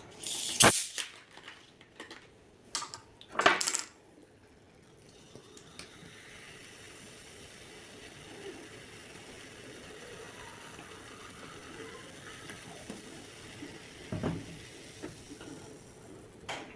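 A few sharp clinks and knocks of plate and cutlery being handled in the first four seconds, the loudest about three and a half seconds in. Then a long stretch of faint hiss with small soft sounds, and a dull knock near the end.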